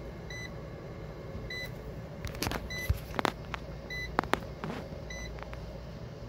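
Fieldpiece SC440 clamp meter giving a short high beep about every second and a quarter, its warning that it is reading over 30 volts across the 48-volt golf cart battery pack. The battery charger's cooling fan hums steadily underneath, and there are a few clicks and knocks in the middle.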